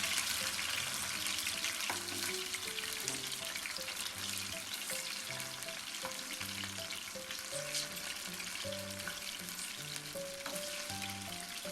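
Marinated, flour-coated chicken pieces shallow-frying slowly in hot oil in a pan, a steady sizzle. Soft background music plays underneath.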